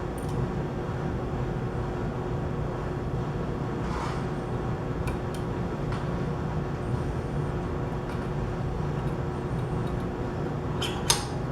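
Steady low background hum with a faint steady tone, and a few faint clicks as small pump parts are fitted onto the shaft, the sharpest near the end.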